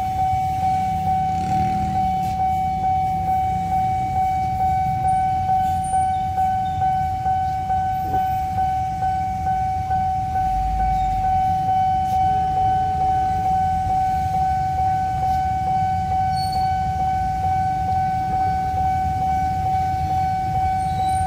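Railway level-crossing warning alarm sounding: one steady electronic tone pulsing in a regular beat, the signal that a train is approaching the crossing. A low steady rumble lies underneath.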